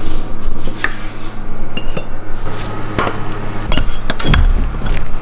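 Metal tools clinking and knocking against steel parts under a car on a lift, over a steady low hum. The hum breaks off near four seconds in, where a heavy low thud is the loudest sound.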